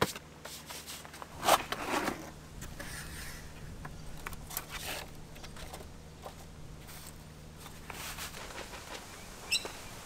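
Handling noises: a sharp knock about a second and a half in, then scattered clicks, scrapes and rustles, with a brief high chirp near the end.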